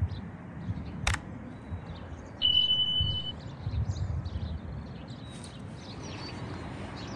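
Outdoor ambience with no train passing: wind gusting on the microphone and birds chirping. There is a sharp click about a second in, and a short steady high beep about two and a half seconds in.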